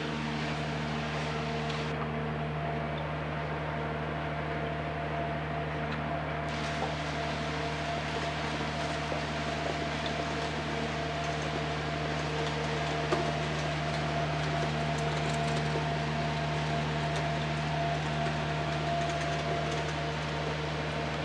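A construction-site machine running with a steady mechanical hum, made up of several held tones. It is the unattended machine that switches itself on by itself at night, the noise the residents complain of.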